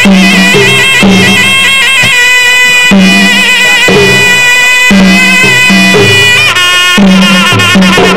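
Traditional Kun Khmer boxing music: a shrill reed pipe (sralai) plays a held, trilling melody over a steady pattern of skor yaul drum strokes, the accompaniment to the fighters' pre-fight ritual.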